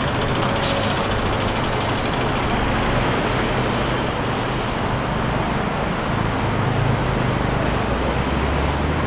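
Busy city street traffic: a steady hum of engines and tyres, with a low engine drone growing louder near the end.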